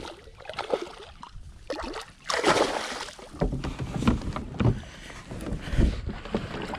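Irregular splashing and sloshing of water around a fishing kayak, with low bumps and knocks against the hull.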